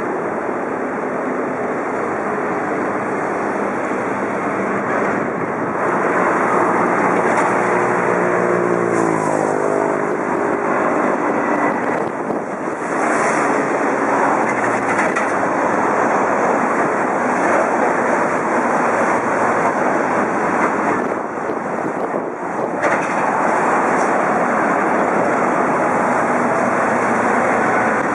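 Airbus A320 airliner on final approach, passing low overhead with its landing gear down: loud, steady jet engine noise, with a set of engine tones that slide down in pitch for a few seconds as it goes by.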